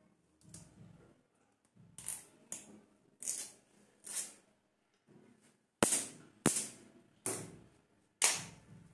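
A run of about eight sharp clacks, each with a short hissing tail, spaced irregularly half a second to a second apart and loudest in the second half: hard objects being handled and knocked against a tiled floor.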